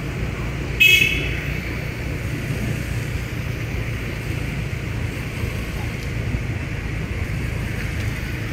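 Steady rumble of a motorbike ride through street traffic on a wet road, with one short vehicle horn beep about a second in.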